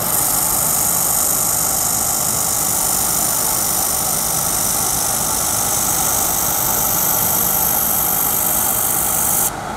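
Handheld 1000 W fiber laser welder running a wobbling weld along a fillet joint with filler wire fed in: a steady hiss that starts abruptly and cuts off sharply near the end.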